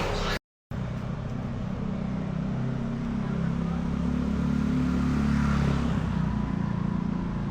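Street traffic: a motor vehicle's engine drones past, growing louder a couple of seconds in and fading toward the end. Just after the start the sound cuts out completely for a moment.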